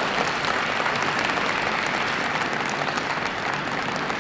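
Audience applauding steadily, a dense even patter of many hands clapping.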